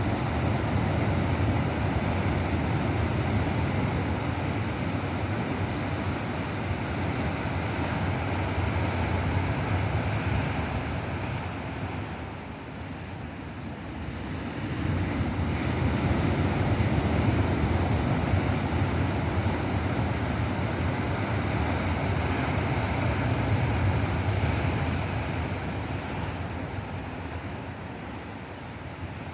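Ocean surf: waves breaking and washing up the shore in a continuous rush, easing off briefly about halfway through and again near the end.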